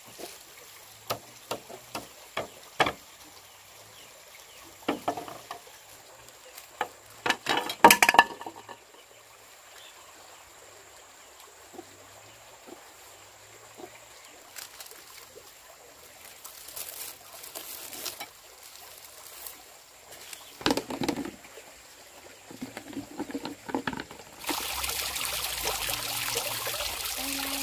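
Scattered knocks and clicks of objects being handled, then about three seconds before the end a steady rush of water starts pouring or running.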